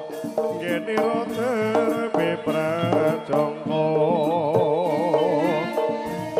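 Javanese jaranan gamelan music: kendang drums beat under a wavering melody with a fast vibrato, over steady held gamelan tones.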